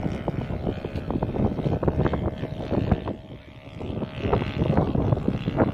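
Gusty wind buffeting the microphone, over the faint drone of a model Piper Cub's 160-size twin-cylinder four-stroke nitro engine flying overhead. The wind eases briefly about three and a half seconds in.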